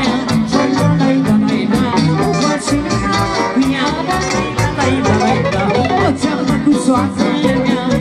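A live wedding band playing upbeat dance music on accordion, electric keyboard and drum kit, with a steady quick beat.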